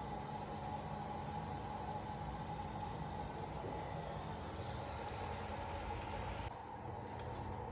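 Steady background hiss with a low, even hum; the high part of the hiss cuts out suddenly about six and a half seconds in.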